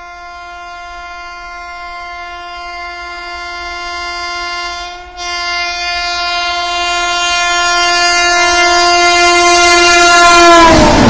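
Long continuous blast of a WAP-7 electric locomotive's horn as the Rajdhani Express approaches at about 130 km/h, growing steadily louder, with a brief break about five seconds in. Near the end the horn's pitch drops as the locomotive passes, and the rush of the passing train takes over.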